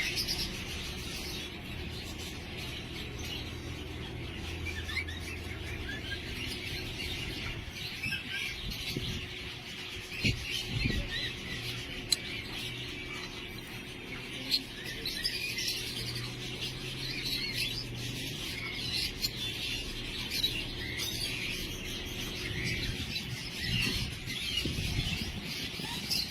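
Birds chirping: dense, rapid high chirps that carry on throughout, with a few short soft knocks.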